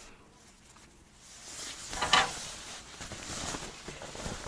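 Thin fabric of a party photo backdrop rustling as it is unfolded and shaken out, with a louder rustle about two seconds in.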